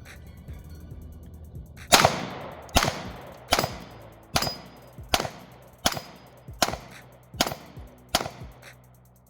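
Glock 43X 9mm pistol fired at a steady pace, nine shots about a second apart starting about two seconds in, each ringing out briefly. The string goes off evenly without a stoppage.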